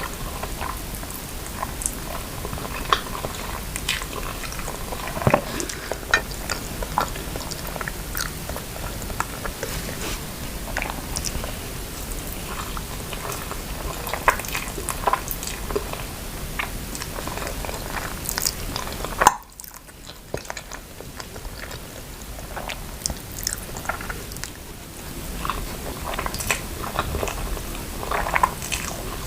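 Close-miked chewing and biting of noodles and grilled chicken pieces, with many short wet clicks and smacks. There is one sharp click about two-thirds through, then a few quieter seconds before the chewing picks up again.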